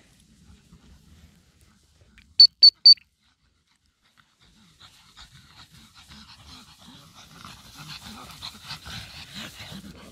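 Pugs panting hard and fast, growing louder over the last five seconds as the dogs wrestle close by. About two and a half seconds in, three short, loud, high beeps come in quick succession.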